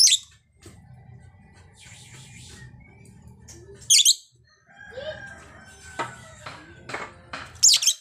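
Female lovebird, a blue-mutation masked lovebird, calling: three sharp, high-pitched shrieks about four seconds apart, with a run of quicker twittering chatter between the second and third.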